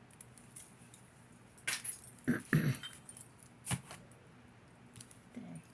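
Metal jewelry, chains and beads, jingling and clicking as pieces are handled, in a few short rattling bursts.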